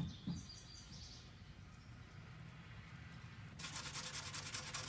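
Sanding a wood crack filled with sawdust-and-wood-glue putty, starting about three and a half seconds in as a rapid, even rubbing rhythm that carries on.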